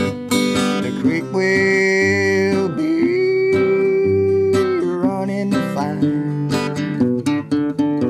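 Background music: acoustic guitar picking and strumming, with two long held melody notes in the middle.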